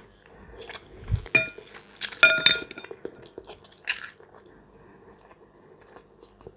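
Metal fork clinking against a ceramic bowl of macaroni: one sharp ringing clink about a second and a half in, then a quick run of ringing clinks about a second later.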